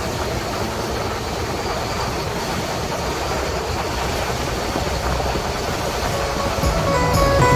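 Motorboat under way: its engine running steadily under a broad rush of water and wind noise.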